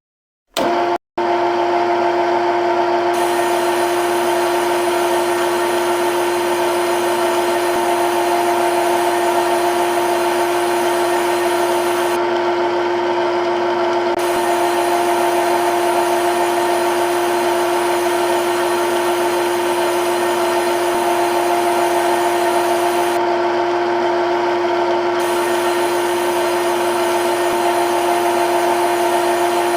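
CNC lathe spindle running at a constant speed: a steady machine whine made of a few unchanging tones over a hiss. It starts abruptly about half a second in and breaks off for an instant soon after.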